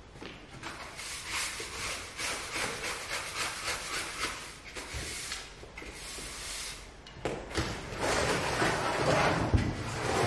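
Push broom's bristles sweeping a parquet wood floor in short brisk strokes, a few a second, then longer, louder sweeping from about seven seconds in. A couple of knocks near the end.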